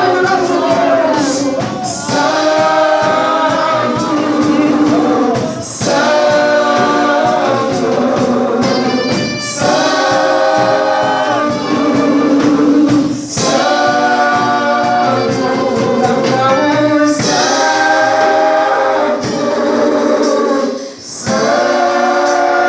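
Worship team singing together as a choir over musical accompaniment, in held phrases that pause briefly every two seconds or so.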